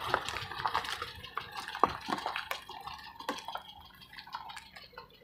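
Irregular crunching and clicking of loose stones under a small sedan's tyres as it rolls away over a gravel track, fading as the car moves off.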